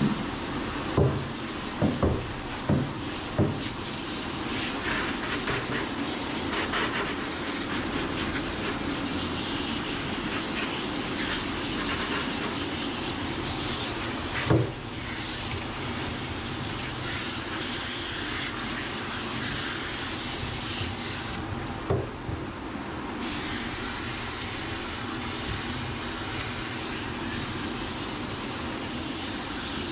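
Handheld hose sprayer sending a steady hissing spray of water over a wet, soapy dog's coat and into a stainless-steel grooming tub. A few sharp knocks come in the first few seconds, a louder one about halfway, and the hiss briefly thins about two-thirds of the way through.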